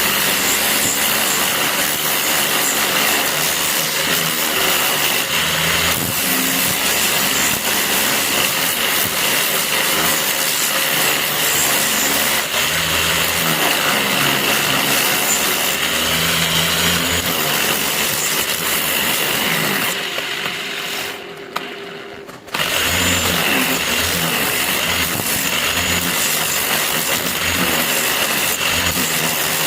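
A power tool running steadily with a constant high whine, working on the steel knife blade, with a short lull about three-quarters of the way through.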